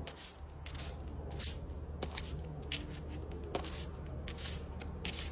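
An African pied crow tearing and pulling at green leaf blades with its beak and feet: short, scratchy rustles, about three a second and unevenly spaced.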